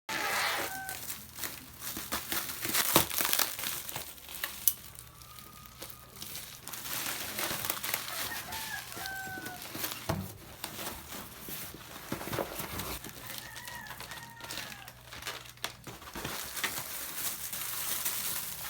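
Chickens calling in short pitched clucks, several times over, amid scattered rustling and clicks.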